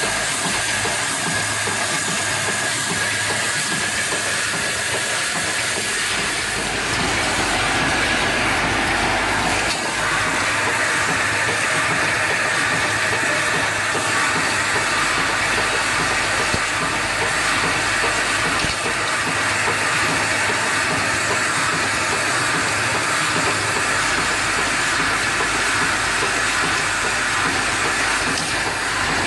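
Automatic flip-top cap assembling machine running at high speed: a steady, dense mechanical noise with hiss from its rotary turret and pneumatic parts, a little louder from about seven seconds in.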